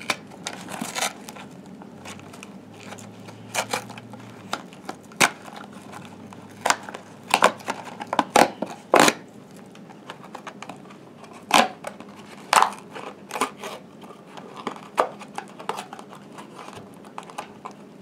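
Cardboard toy box and its packaging being handled and worked open by hand: irregular clicks, taps and crinkling of cardboard and paper.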